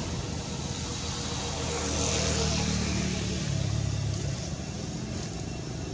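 A low engine hum from a motor vehicle, swelling about two seconds in and easing off again.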